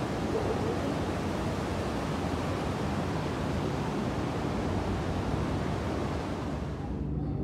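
Water falling in a curtain down an indoor water-wall feature, a steady rushing hiss that cuts off abruptly near the end.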